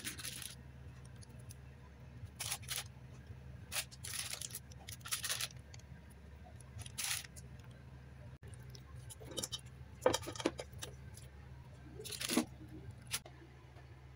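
Crinkling plastic bag and scraping in a stainless steel sink as whole raw fish are handled, in short bursts every second or so over a steady low hum.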